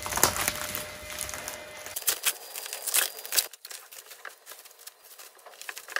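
Packaging crinkling and tearing as it is pulled open and unwrapped, in scattered rustles that thin out after the first few seconds.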